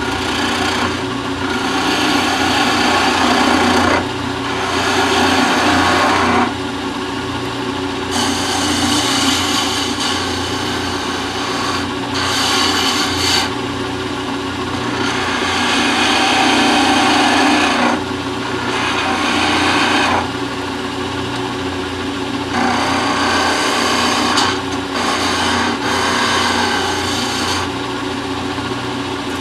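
A turning tool cutting into a spinning teak leg on a lathe: a scraping, rasping cut in about seven passes of a few seconds each, with short lulls between them. Under the cuts runs the steady hum of an old Shopsmith 10ER driven by a half-horsepower Rockwell electric motor. The waste is being turned away to leave a tenon.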